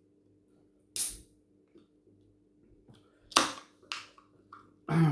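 Aluminium can of Fanta Orange being opened by its ring-pull: several sharp cracks and clicks, the loudest followed by a short hiss of fizz. A heavier knock comes near the end.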